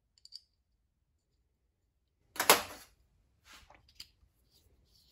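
Hand handling of small hard parts: a couple of light clicks, then one louder short clatter about two and a half seconds in, followed by a few small ticks.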